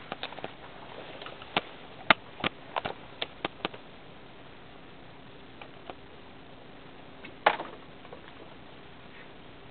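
Scattered sharp clicks and snaps from climbing through willow branches and twigs: a quick run of them in the first four seconds, then one louder snap about seven and a half seconds in.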